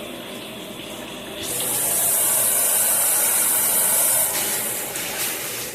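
Water spraying from a shower head. About a second and a half in, the spray turns louder and hissier for about three seconds, then drops back to a softer, steady flow.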